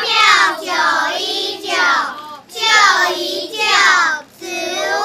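A group of young children chanting a slogan in unison, in a run of short, loud sing-song phrases.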